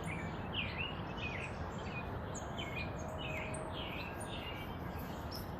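Songbirds chirping in the morning: short chirps repeated about twice a second over steady outdoor background noise.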